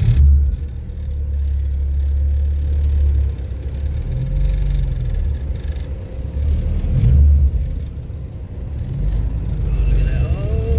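Muffled low rumble of an automatic car wash working over the car, heard from inside the cabin. It swells and eases several times.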